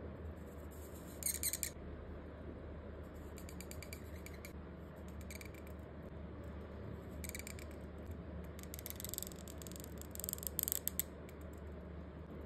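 Bamboo calligraphy pen (qalam) scratching on paper as it draws ink strokes: short bursts of fine, dry scratching with pauses between, a sharp one about a second in and the loudest run near the end.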